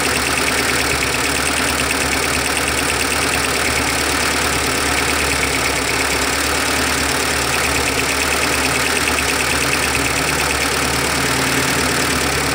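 Carburetted four-cylinder engine of a 1997 Mitsubishi Colt T120SS idling steadily, heard close up at the distributor and spark plug wires while they are checked for a dead cylinder.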